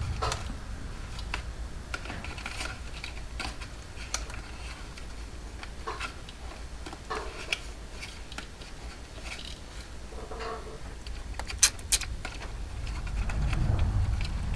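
Small scattered clicks, taps and rustles of wires and plastic connectors being handled and tucked into an RC truck chassis, with two sharp clicks close together near the end. A low hum runs underneath.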